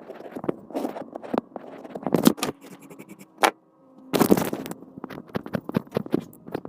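Drawing on a cup: quick, scratchy strokes of a drawing tool across the cup's surface, in irregular runs with a brief pause a little past the middle.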